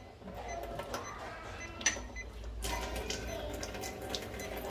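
A sharp click a little under two seconds in, then water starting to run from a kitchen tap in a thin stream into a stainless steel sink, steady to the end.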